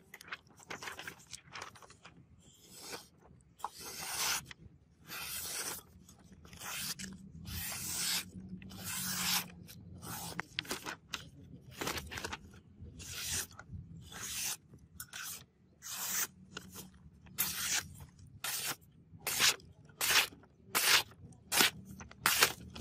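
A sharp sword blade, forged from bearing steel, slicing through sheets of printer paper over and over: a series of short crisp rips about once a second, shorter and louder near the end. The blade cuts the paper cleanly, a test of a keen edge.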